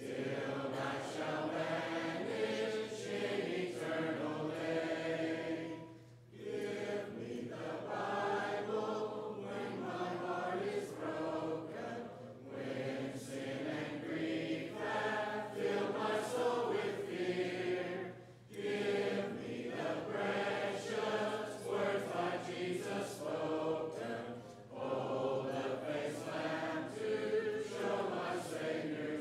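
Congregation singing a hymn a cappella, many voices without instruments, in phrases about six seconds long with short breaks for breath between them.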